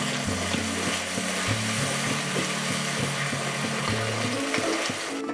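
Masala paste with milk sizzling in hot oil in a kadai, stirred and scraped with a wooden spatula, over background music.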